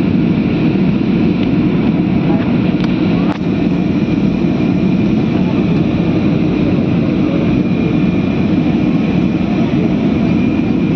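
Steady drone of an airliner cabin in flight: a constant low rushing noise of engines and airflow with a faint high whine.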